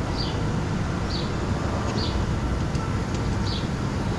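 A small bird repeating a short, high chirp that falls in pitch, about once a second, over a steady low rushing noise.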